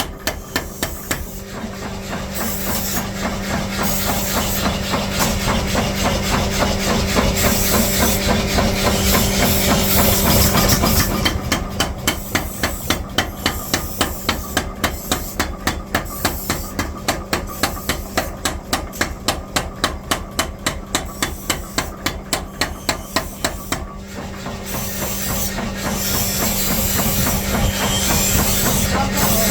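Steel being hammered in a quick, even rhythm of about three blows a second, over a steady machine hum. A louder hissing noise swells up twice under the blows.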